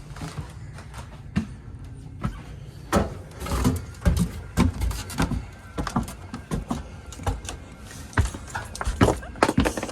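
Irregular knocks, clicks and rattles of handling, densest from about three seconds in, over the steady low hum of a hydro-air handler's blower running.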